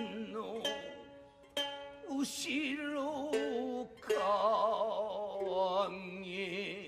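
Traditional Japanese theatre music: sharp plucked shamisen notes under a voice chanting in long, strongly wavering held notes.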